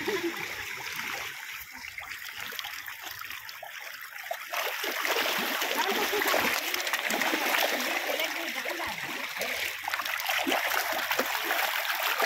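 A dense shoal of carp splashing and sloshing at the water's surface as they jostle and gulp, a continuous wet churning that grows louder about four and a half seconds in.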